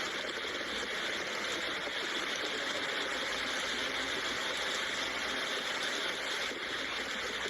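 Steady rain falling, an even hiss with a fine patter and no breaks.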